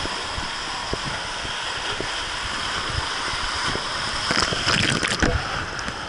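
Rushing, splashing water in a water slide's flume as a rider slides down, with occasional knocks against the slide. A burst of louder splashing comes about four to five seconds in.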